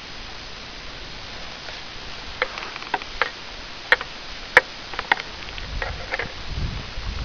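Footsteps on a forest floor thick with dry fallen leaves and twigs: a run of sharp crackles and snaps, about two a second, starting a couple of seconds in, over a steady hiss. A low rumble comes near the end.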